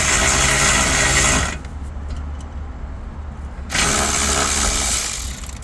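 A handheld power tool's motor running in two bursts, the first ending about a second and a half in and the second lasting about a second and a half near the end, as fasteners are run out during disassembly for the fuel pump job.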